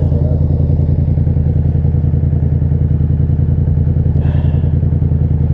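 Steady low drone of a vehicle's engine and road noise heard from inside the cab while driving, even and unchanging in pitch.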